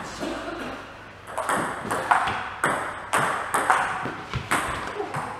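Table tennis rally: the celluloid-type plastic ball ticking off the bats and bouncing on the table, sharp clicks about twice a second that start about a second and a half in, after the serve.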